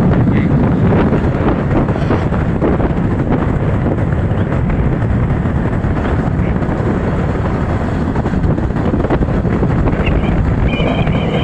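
Wind buffeting the microphone over the steady noise of a moving motorcycle, with a brief high-pitched tone near the end.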